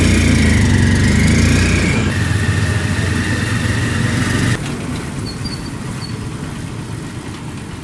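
Motorcycle engine of a tricycle, heard from its sidecar, running hard with a wavering whine, then easing off about four and a half seconds in to a quieter, steady run.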